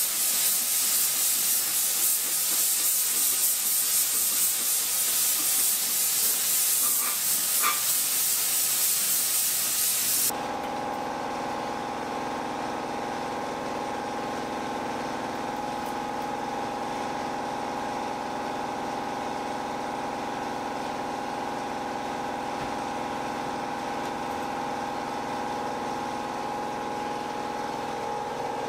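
Air-fed paint spray gun hissing steadily while spraying the engine block, cutting off abruptly about ten seconds in. After that, a quieter steady mechanical hum with several held tones.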